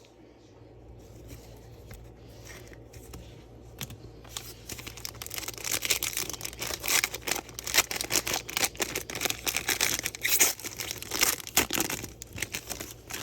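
Foil card pack wrapper being torn open and crinkled: quiet for the first few seconds, then a long run of quick rustles and tearing until near the end.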